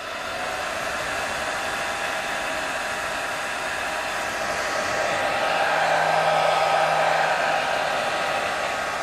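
Hair dryer blowing steadily, growing louder for a couple of seconds past the middle, with a low hum added then.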